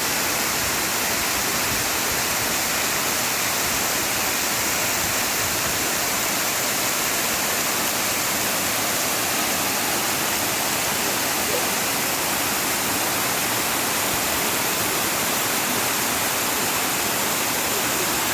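Steady rush of water pouring over a man-made waterfall, an even, unchanging sound of falling water.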